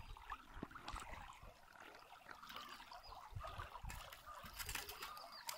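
Faint trickling and babbling of shallow river water, with a few sharp clicks from handling near the end.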